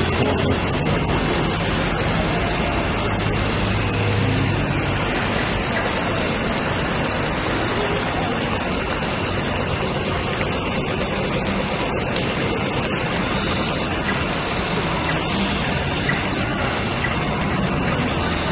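Street traffic: a steady wash of car engines and tyre noise, with a low engine hum in the first few seconds.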